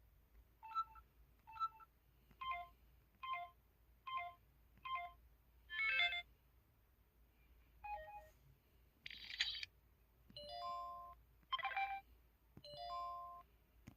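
MS600 mobile phone's flute-voiced keypad button tones: a series of short synthesized flute notes, one per key press, each at its own pitch, at first about one a second. A few longer notes follow in the second half.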